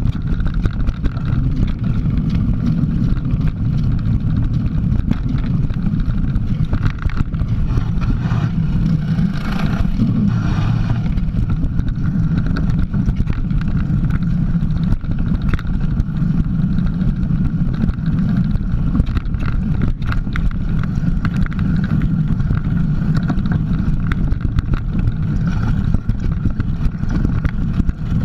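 Mountain bike riding down a dirt trail, heard from a camera mounted on the bike: a steady low rumble of tyre and trail vibration and wind on the microphone, with frequent small knocks and rattles from the bumps.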